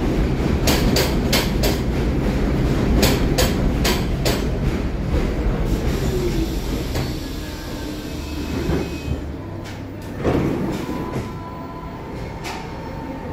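New York City subway train pulling into a station and stopping: its wheels clack over rail joints, the clacks spacing out and dying away as it slows. A short falling whine follows, then a single knock about ten seconds in, and a steady faint tone near the end as the train stands.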